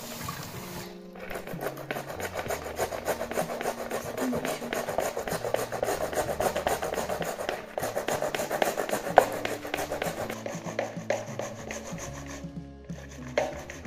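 A ripe tomato being grated by hand on a plastic grater into a plastic bowl: quick, continuous scraping strokes, over background music.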